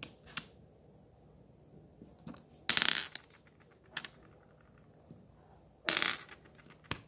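Clear glitter slime being poked and pulled apart by hand, giving two crackling, squelching bursts about three seconds apart, the second near the end. Between them come a few small sharp clicks as little plastic rubber ducks are taken out and set down on the wooden table.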